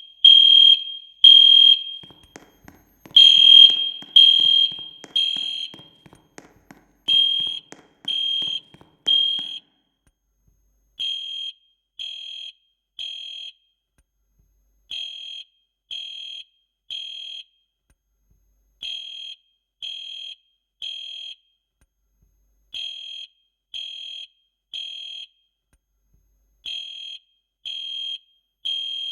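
Fire alarm sounding the three-beep evacuation pattern: groups of three high-pitched beeps, one group about every four seconds. The beeps are loud for the first ten seconds or so, then fainter. The owner says it went off with nothing to set it off.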